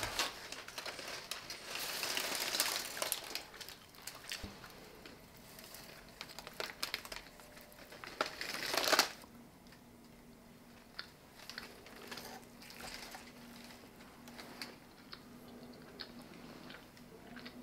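Baking paper and foil crinkling as hands work at a tray of roasted beef ribs, with scattered small clicks of fork and fingers. The rustling is loudest about two seconds in and again around nine seconds, then gets quieter.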